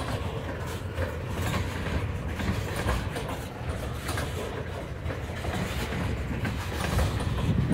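Freight train of tank cars rolling past: a steady low rumble of steel wheels on the rails, with scattered clicks.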